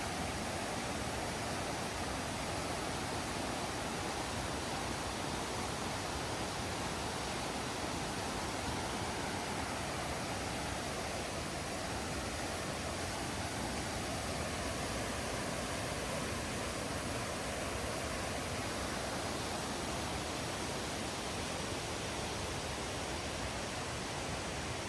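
Steady rush of flowing water, an even hiss with no change.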